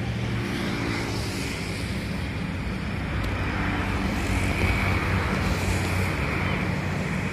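Steady low hum and rumble of distant motor traffic, with a hiss of outdoor noise over it and no sudden events.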